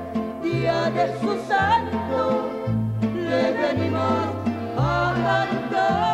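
Mariachi band playing, with a woman singing the melody with a wide vibrato over violins and a deep guitarrón-style bass line moving note by note.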